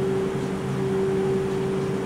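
BKN-S82 soft-serve ice cream machine running while it dispenses: its compressors and beater motors make a steady hum with one strong constant tone over a noisy mechanical whir.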